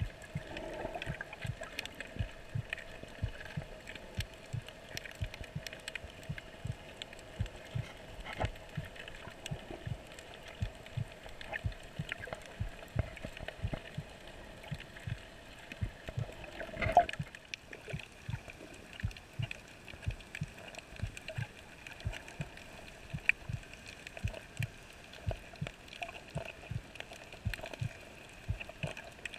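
Muffled underwater sound heard through a waterproof camera housing while snorkeling over a coral reef. Frequent soft, irregular knocks, about two or three a second, sit over faint steady tones, with one louder knock about 17 seconds in.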